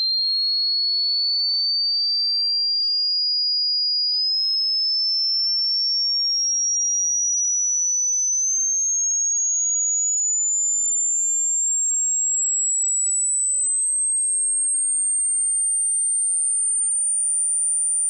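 A single pure sine test tone, part of a hearing-test sweep, rising slowly in small steps from a high pitch to a very high pitch at an even loudness. It probes how high a pitch the listener can still hear.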